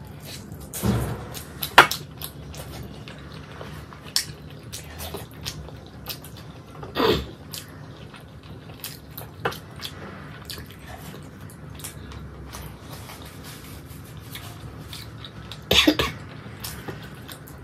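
Close-up eating sounds: a person biting and chewing chicken meat off the bone by hand, with many small mouth clicks and a few louder sounds about a second in, at about seven seconds, and near the end. Fingers and bones now and then touch a steel plate.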